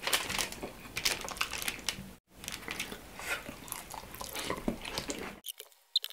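Close-miked eating sounds: wet chewing, biting and lip smacks with a dense run of small sticky clicks as grilled chicken inasal is pulled apart by hand and eaten. The sound cuts out briefly about two seconds in.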